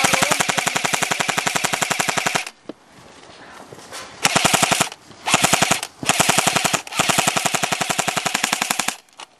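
M4-style airsoft rifle firing on full auto: one long rapid burst of about two and a half seconds, a short pause, then four shorter bursts in quick succession.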